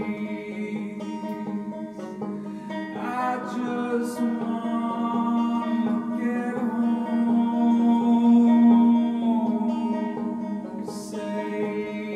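Live folk song: a man singing over a plucked banjo, with a long held note from about three seconds in that swells loudest near the two-thirds mark before easing off.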